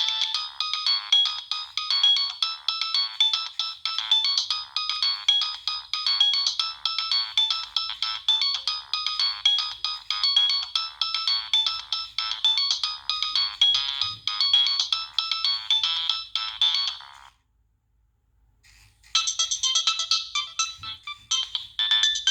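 Preloaded ringtones of a Nokia 3588i phone playing through its small speaker: a quick electronic melody of rapid notes with no bass, which stops about seventeen seconds in. After a short silence a different ringtone starts about two seconds later.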